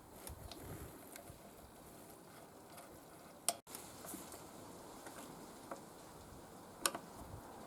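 Faint scattered clicks and light rustling of small parts and tools being handled, with two sharper clicks about three and a half and seven seconds in.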